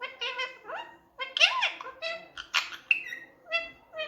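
Indian ringneck parakeet chattering in a quick run of short, high-pitched syllables, with some notes gliding up and down in pitch, in the parrot's imitation of speech.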